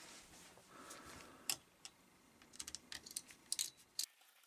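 A scatter of small, sharp clicks and taps from a screwdriver being brought to and seated on the screws of a laptop's copper CPU heatsink, with a single louder click about a second and a half in and a quick run of clicks near the end.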